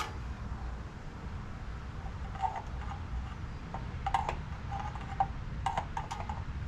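Motor oil being poured from a quart bottle into a small engine's crankcase, with a few short gurgles as the bottle glugs and a few light clicks, over a steady low rumble.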